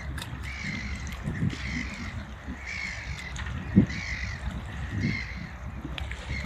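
Gulls calling over open water, a string of short harsh calls repeating about once or twice a second. Wind rumbles on the microphone, with a brief low thump about four seconds in.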